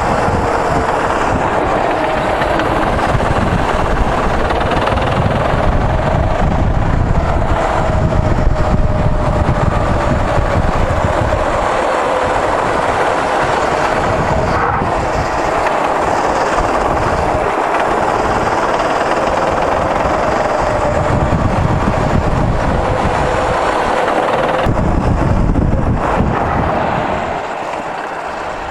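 Go-kart engine running hard, heard from the driver's seat, its note rising and falling as the kart speeds up and slows through the corners, with low rumble from the kart and wind; it eases off a little near the end.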